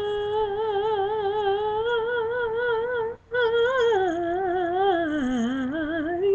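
A woman's voice singing unaccompanied and without words. She holds one long note with vibrato, takes a breath about three seconds in, then sings a wavering run that dips lower before ending.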